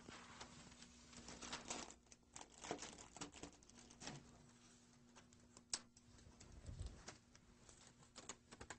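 Faint scattered clicks and crinkling of Mylar reflective sheeting being cut with scissors and handled, with one sharper click a little before six seconds in.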